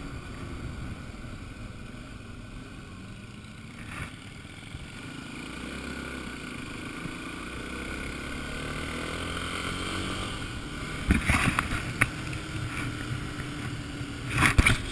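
Trail motorcycle engine running while riding, its pitch rising gradually in the middle as it speeds up, with wind rumbling on the microphone. A few sharp knocks about eleven seconds in and again at the end.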